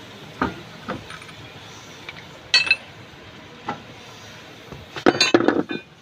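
Metal hand tools clinking and knocking against metal during work on a car's front wheel hub: a few single clinks, one ringing briefly, then a quick cluster of clinks and knocks near the end.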